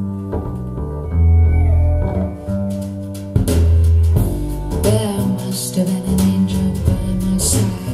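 Demo music: plucked guitar over a deep bass line, with a singing voice.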